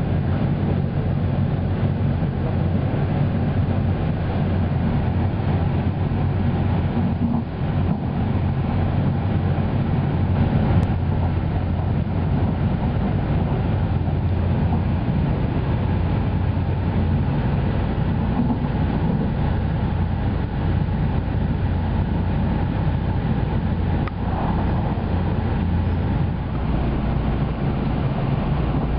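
Haruka limited express train running at speed, a steady low rumble of wheels and car body heard from inside the passenger car.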